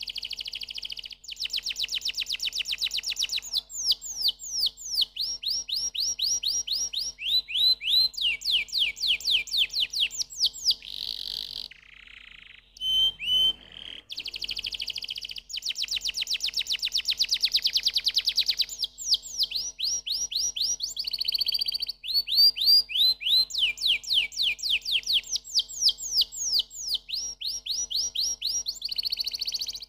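Domestic canary singing a long, loud song of fast trills and rapid runs of repeated downward-sweeping whistled notes, with a brief break about twelve seconds in.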